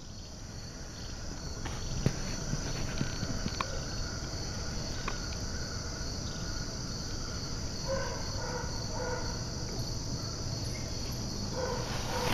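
Steady, high-pitched chorus of insects chirring, with a few faint clicks.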